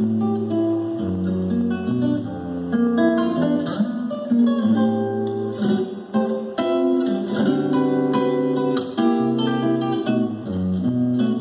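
Solo classical guitar playing an Argentine zamba: a plucked melody over ringing bass notes, with occasional strummed chords.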